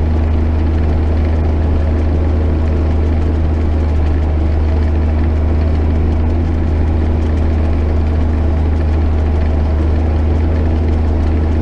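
JCB Fastrac 8250 tractor's engine running steadily under ploughing load: a constant, loud low drone with a steady hum over it, unchanging throughout.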